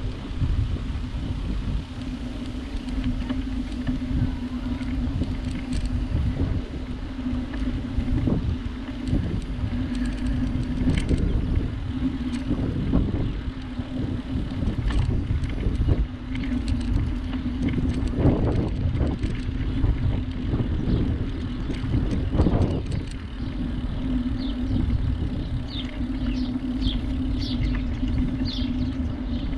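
Wind buffeting and rumble on a GoPro Hero 7's microphone during a bicycle ride along a canal towpath, with a steady low hum throughout. A few short bird chirps come in near the end.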